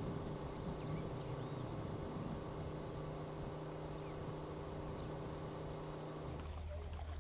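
A steady low engine drone with a pitch that drops about six seconds in.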